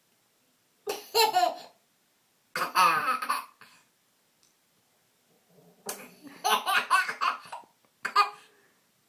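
A young child laughing in four bursts separated by short silences. The longest burst starts a little before six seconds in.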